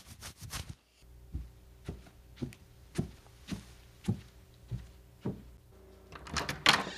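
A series of about eight soft, evenly spaced thuds, a little under two a second, followed by a short rattle of clicks near the end.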